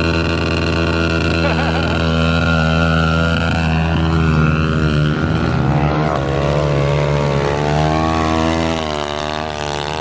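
Pit bike engine running close by. Its pitch holds steady at first, then wavers and rises somewhat in the second half.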